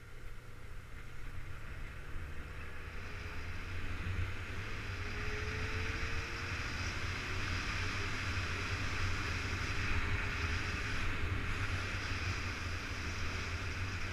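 Motorcycle engine running under way with a steady rush of noise, growing louder over the first several seconds and then holding steady.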